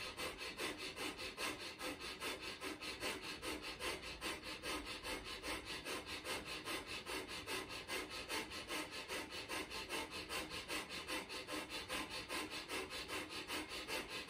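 Breath of fire: a man's rapid, even nasal breathing, short forceful breaths in and out through the nose driven by pumping the diaphragm, several a second in a steady rhythm. It has a rasping sound like someone sawing wood.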